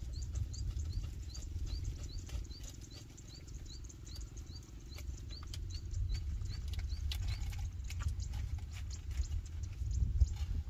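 Wind rumbling on the microphone, with a quick run of short rising high chirps, about three a second, that stops around seven seconds in, and scattered light clicks.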